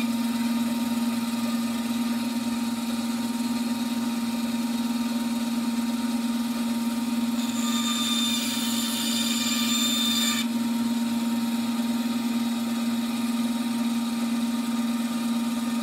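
Bandsaw running with a steady hum while its blade cuts a point into the end of a 3/8-inch oak dowel. A higher rasp of the blade sawing through the wood comes from about seven to ten seconds in, then stops suddenly.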